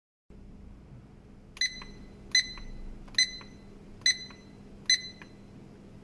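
Digital mirror alarm clock (Zohar DS-3625B) giving five short, high electronic beeps about a second apart, each followed by a faint click: key beeps as a button on top of the clock is pressed.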